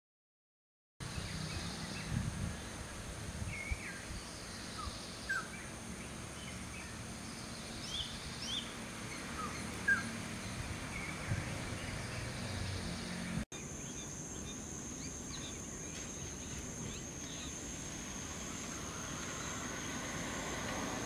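Garden ambience with scattered short bird chirps, brief gliding notes every second or two, over a steady high-pitched hum. About halfway through the background changes abruptly and the high hum grows stronger.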